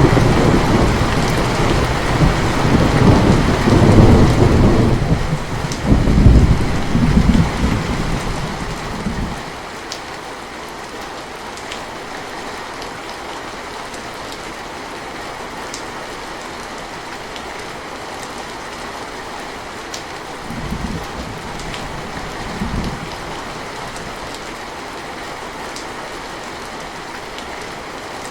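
Steady heavy rain with a long rolling thunder rumble that fades out about nine seconds in, leaving the rain alone. Two short, lower rumbles of thunder come a little after twenty seconds.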